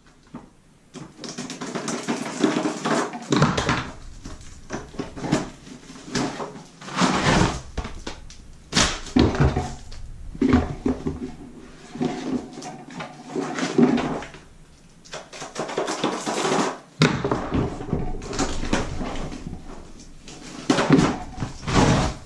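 Sheets of hex mosaic floor tile being pulled from a cardboard box and stacked: an irregular run of light clicks and clatter of tile on tile, with cardboard rustling.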